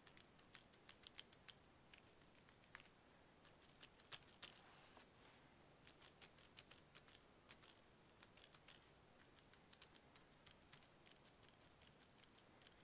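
Faint, irregular soft tapping and light scratchy clicks of a makeup sponge dabbing ink onto paper through a stencil, several dabs in quick clusters with short pauses between.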